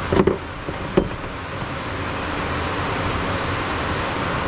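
Two light metal clicks on the bench, then a steady rushing hiss that builds up as a shop rag rubs against the camera's microphone.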